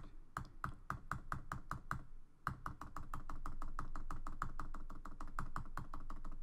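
Mac computer keyboard keys struck over and over in quick succession, Command+V pressed repeatedly to paste. The result is a steady run of key clicks, about four a second at first, then after a short pause about two seconds in, faster, about six a second.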